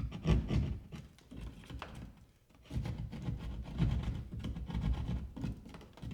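Hand drywall saw cutting through a piece of drywall in a run of uneven back-and-forth strokes, with a short pause a little over two seconds in.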